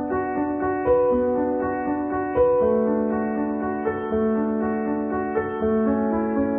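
Gentle piano music: slow sustained notes and chords.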